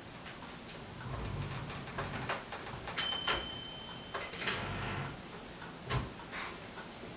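A manual typewriter handled on a table: scattered clicks and knocks, with a sharp strike and one clear ringing ding about three seconds in, a short scraping slide after it, and a dull thump near the end.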